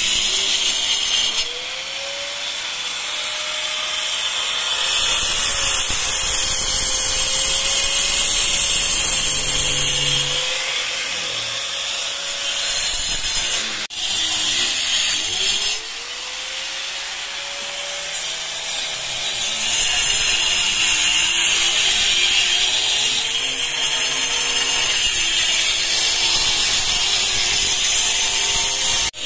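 Handheld angle grinder with a cutting disc running loud against a masonry wall, the disc grinding a groove and the motor's whine wavering up and down as the load changes, with a brief break near the middle. The groove is a chase being cut for concealed wiring.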